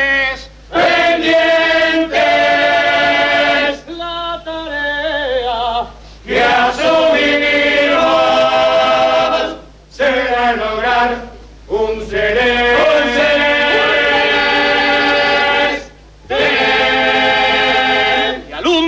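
Uruguayan carnival murga chorus singing in many-voiced harmony, holding long chords in phrases of a few seconds each with short breaks for breath between them.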